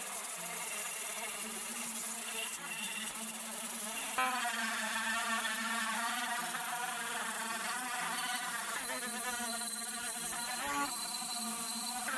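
A small electric motor buzzing steadily with a high whine that wavers slightly in pitch, shifting and getting a little louder about four seconds in.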